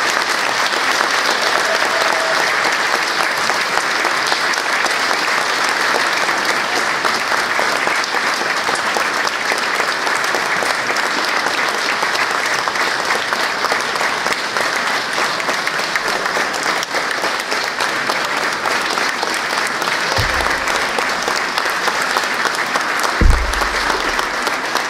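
Audience applauding steadily, a sustained patter of many hands clapping. Near the end a low thump sounds twice, the second one the loudest moment.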